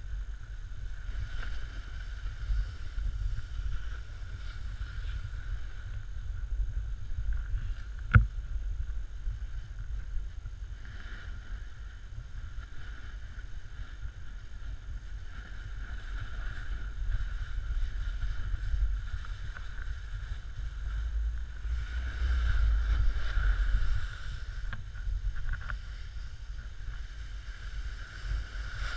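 Snowboard sliding down a snow slope: a steady low rumble of the board over the snow mixed with wind on the microphone, with a hiss of the edge scraping, louder for a couple of seconds near the end. A single sharp knock about eight seconds in.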